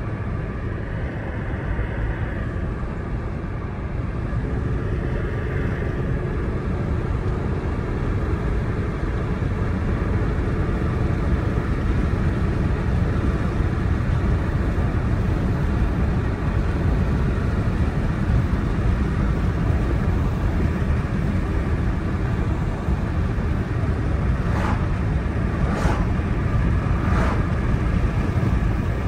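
Car driving on the road: steady engine and tyre rumble. Three short clicks near the end, about a second and a half apart.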